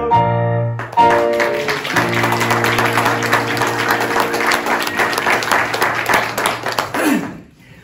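A sustained musical chord closes out in the first second, then a congregation applauds for about six seconds over a lower held chord. The clapping and chord die away near the end.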